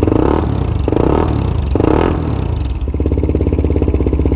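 CF Moto 300 SR motorcycle engine blipped three times in quick succession, about a second apart, each rev rising and dropping back. It then settles into a steady, pulsing idle near the end.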